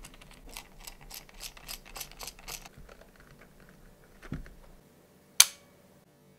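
Small plastic film camera being handled and worked open by hand: a quick run of light plastic clicks, a softer knock about four seconds in, and one sharp snap about five seconds in.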